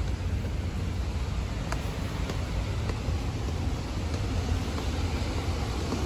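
Large waterfall (Düden Waterfall) falling: a steady, even rush of water with a deep rumble underneath.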